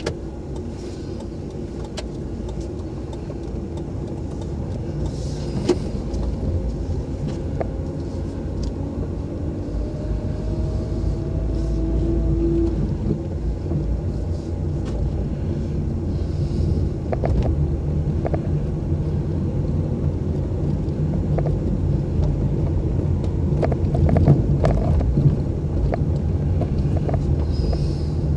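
Car being driven, heard from inside the cabin: a steady low engine and road rumble that grows gradually louder, with scattered small knocks and rattles, most of them near the end.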